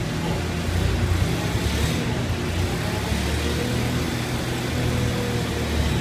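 Forklift engine running steadily with a low hum.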